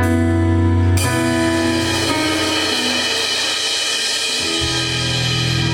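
Live band playing an instrumental passage without vocals: sustained electric guitar and bass chords, with a cymbal crash about a second in that rings on for several seconds, and the bass notes coming back in near the end.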